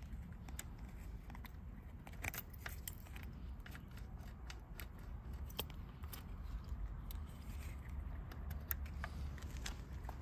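A bunch of keys clinking and ticking as a hand handles them, in irregular small clicks, over a low rumble.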